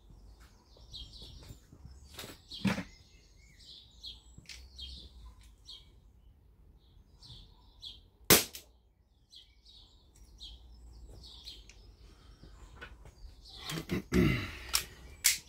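A single sharp air pistol shot about eight seconds in, the loudest sound, with birds chirping in the background throughout. A cluster of knocks and clatter comes near the end.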